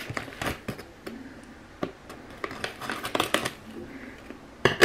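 A taped brown kraft-paper parcel being cut and pulled open with scissors: scattered snips and paper crinkling, with one louder sharp crack near the end.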